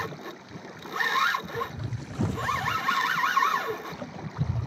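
Large spinning reel working under the load of a hooked kingfish: a wavering whine that rises and falls about four times a second for a bit over a second, in the second half. Water sloshes against the kayak hull and wind hits the microphone throughout.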